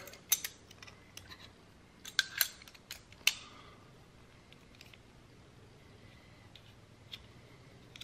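Small metal clicks and scrapes as the blade and handle pieces of a take-apart folding knife are fitted back together. There are a few sharp clicks in the first three and a half seconds, then only faint ticks.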